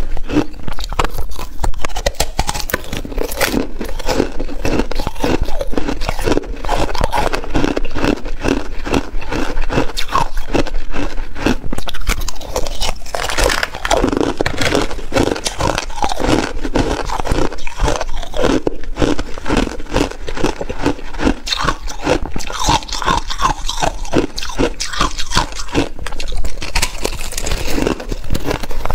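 Bars of frozen crushed ice (foam ice) being bitten and chewed close to a clip-on microphone: a dense, continuous run of crisp crunches and crackles.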